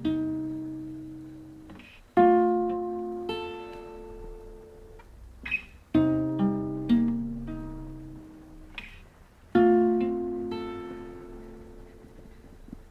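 Classical guitar played slowly: chords plucked and left to ring and fade, with a new chord every few seconds and a few single notes in between.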